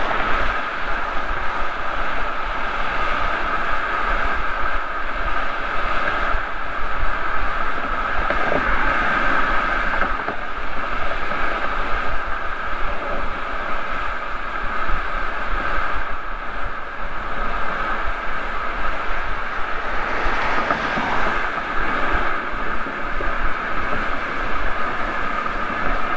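Steady road noise from a 2005 Mercedes-Benz E320 CDI turbodiesel sedan driving at highway speed, picked up by a microphone mounted outside the car: continuous tyre roar and wind rush.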